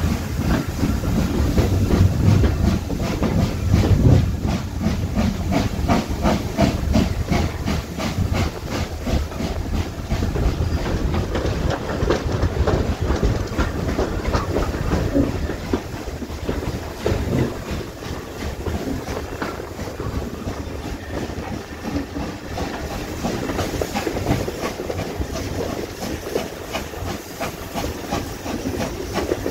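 Steam locomotive Pendennis Castle, a GWR Castle-class 4-6-0, hauling the train, heard from a carriage window close behind it: steam hiss and wheels clattering over the rails, with a regular beat of about three a second. The beat is clearest in the first half and softens later.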